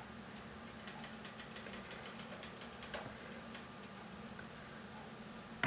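Fingers spreading and pressing mashed-potato filling onto a piece of bread, heard only as faint small clicks, with a slightly louder click near the end, over a steady low hum.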